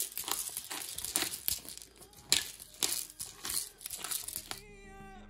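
Hand-twisted pepper mill grinding black pepper in short repeated grinding strokes. Guitar music comes in near the end.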